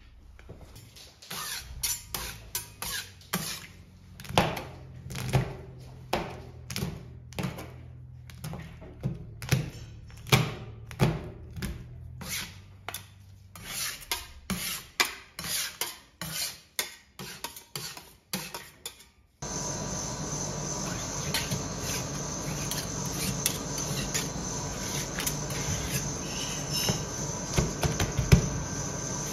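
Metal spatulas chopping and scraping on a steel ice-cream cold plate, a quick irregular run of sharp knocks and clicks as they hack chocolate-coated Magnum ice cream bars into the cream. About two-thirds of the way in, a steady high buzzing hum starts abruptly under the continuing scraping and taps.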